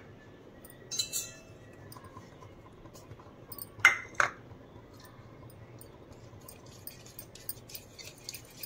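Kitchen utensils clinking on a plastic bowl: a short rattle about a second in and two sharp clinks near four seconds. Toward the end come light, rapid ticks as a wire whisk starts stirring dry flour into the batter.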